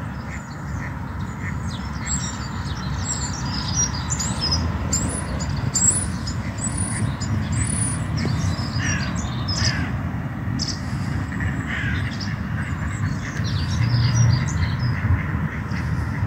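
Wild birds calling outdoors: many short, high chirps and a few harsher, lower calls, over a steady low rumble.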